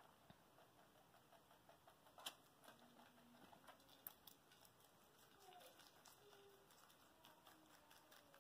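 Faint, quick crunching of rabbits chewing lettuce and celery, with a couple of louder crunches about two and four seconds in.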